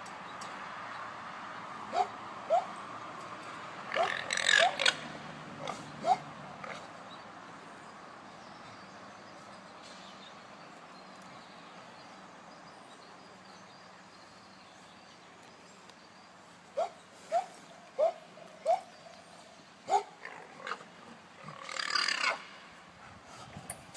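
Alpacas humming: a series of short, high hums, some in quick pairs. A harsher, louder call comes about four seconds in and again near the end.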